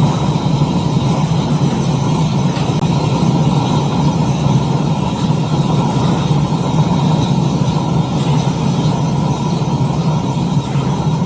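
Small DIY melting furnace running steadily as it melts platinum-group metal, giving a loud, even rumble with no breaks.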